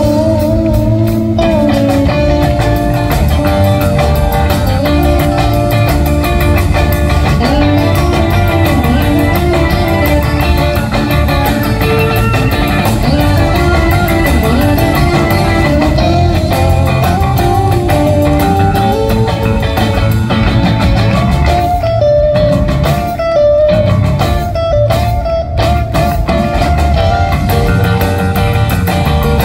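Live rock band playing an instrumental passage: electric guitars over electric bass and a drum kit, with no singing.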